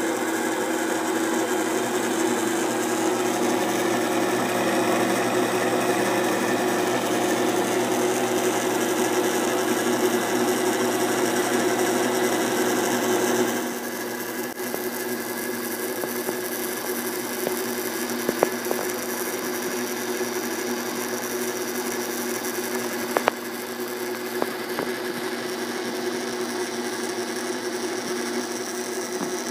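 Electric sewing-machine motor belt-driving spinning spheres on bearing-and-shaft assemblies: a steady whirring hum with a whine. About halfway through it drops a little in level and goes duller, with a few light ticks later on.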